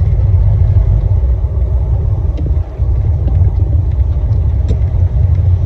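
Steady low rumble of a Jeep driving slowly, engine and road noise heard from within the vehicle, briefly dropping about two and a half seconds in.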